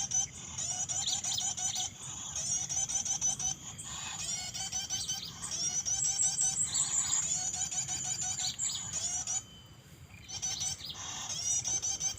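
Small songbird singing fast, repeated twittering phrases, high-pitched, breaking off for about a second near the end before resuming.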